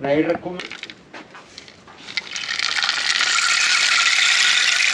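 A painted rain stick tipped on end, its pebbles trickling down inside. There are a few scattered clicks at first, then about two seconds in it becomes a steady rattling hiss, like pouring rain.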